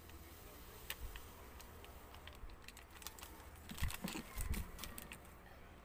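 Light scattered clicks and crinkles of a plastic powdered-drink sachet being handled and emptied into a plastic jar, with two soft knocks a little before and after four seconds in.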